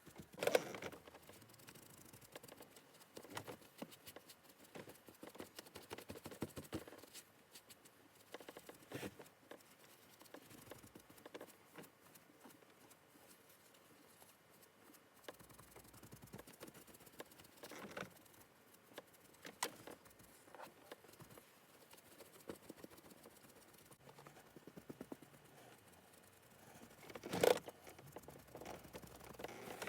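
Faint dabbing and patting of a sponge working colourant into car seat leather, with scattered small taps and rustles and a few louder knocks, the loudest near the end.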